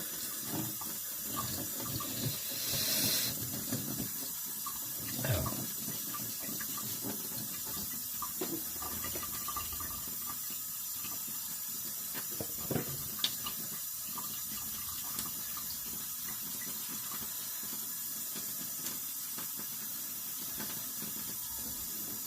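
Tap water running steadily into a sink, with scattered short knocks and clicks in the first half.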